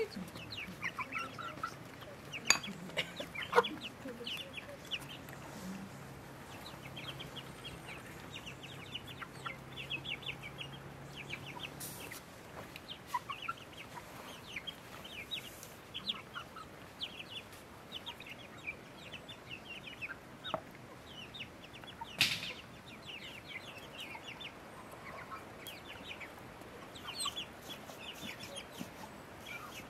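A flock of white chickens clucking, with many short high chirps throughout and a few sharp clicks.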